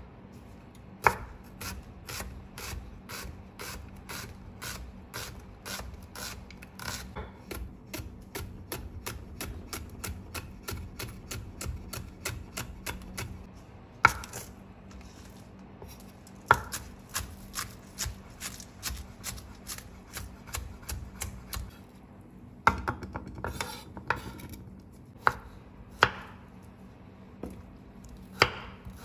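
Kitchen knife chopping food on a wooden cutting board: a steady run of quick, even chops, about two or three a second, for roughly the first half, then slower, louder single knocks and short bursts of chops.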